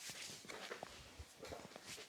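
Faint, soft rustling and a few light taps of hands working over hair and skin during a head massage.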